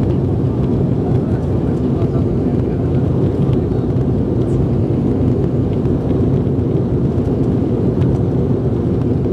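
A steady, loud rumble of an airliner's turbofan engines and rushing air, heard inside the cabin during the takeoff roll.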